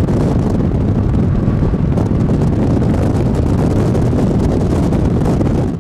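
Wind blowing across the camera microphone from a moving car, a loud, steady low rumble with road noise under it.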